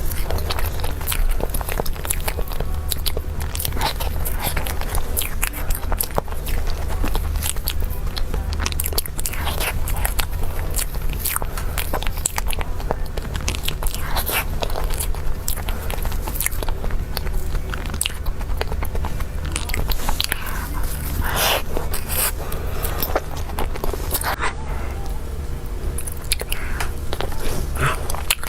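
Close-miked mouth sounds of a person biting and chewing cake: a steady stream of small moist clicks and light crunches, over a constant low hum.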